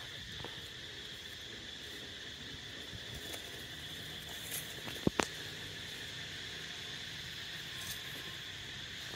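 A steady, high-pitched insect drone runs throughout, with two short, sharp clicks about five seconds in.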